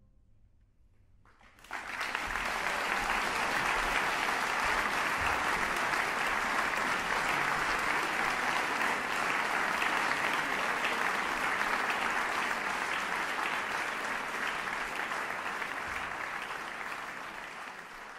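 Audience applauding, breaking out suddenly after a second and a half of near quiet, then holding steady and fading out near the end.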